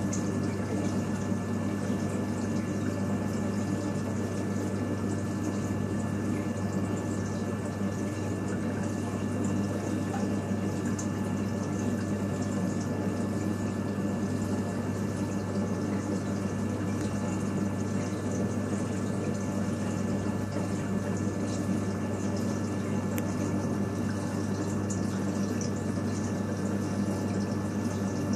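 A reef aquarium's water circulation and pumps running steadily: a constant low hum with a thin steady tone above it, under an even wash of moving, trickling water.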